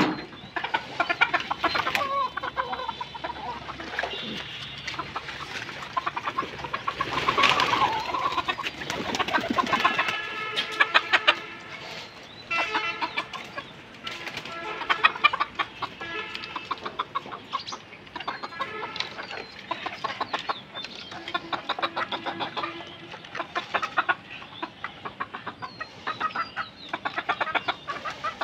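Domestic hens clucking continuously, many short calls overlapping one another.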